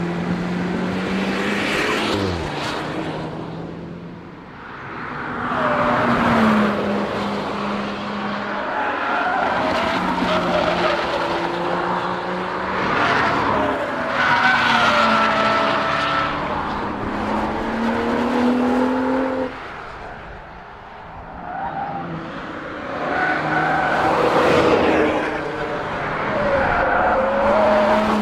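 BMW 4 Series Coupe driven hard in several passes that swell and fade, its engine revving up and dropping in pitch through gear changes, with tyres squealing at times.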